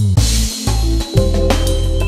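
Background music with a drum kit and deep, sustained bass notes. A bright crash comes just after it begins.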